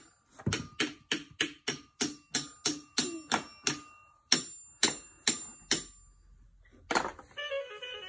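A pink musical ride-on toy playing its electronic sounds: a quick, even run of ringing percussive hits, about three a second, that thins out and stops around six seconds in, then a short beeping tune starts near the end.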